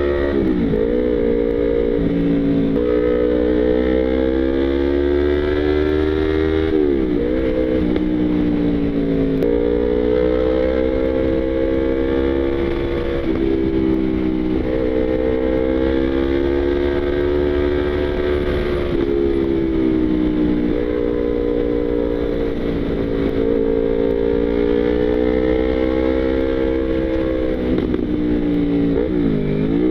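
Yamaha YZF-R25 parallel-twin engine riding along at steady revs, its note dipping and climbing back sharply a handful of times, about a second in, around seven, nine and thirteen seconds, and near the end, as the rider rolls off and shifts. A steady low wind rumble lies under it.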